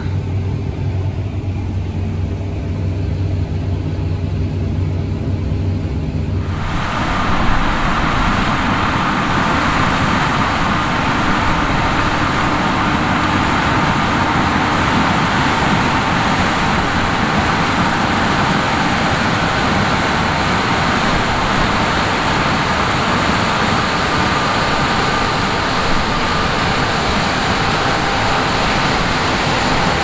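Steady low drone of the Fendt 1050 Vario tractor's engine heard inside its cab; about six and a half seconds in it switches abruptly to the louder, rushing noise of the harvest machinery outside, a combine and the tractor with its grain cart running side by side, with a faint whine over the steady roar.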